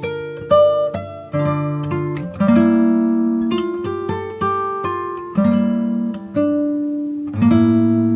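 Background music of plucked, guitar-like notes and chords, each struck sharply and left to ring and fade, with a new note every half second to a second.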